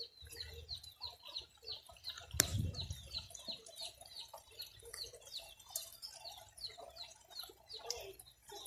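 A bird chirping over and over, a short falling chirp about three times a second, with a single knock about two and a half seconds in.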